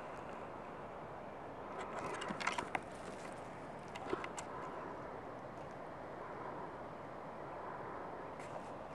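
Steady outdoor background noise, with a short cluster of sharp clicks and knocks about two to three seconds in and another about four seconds in.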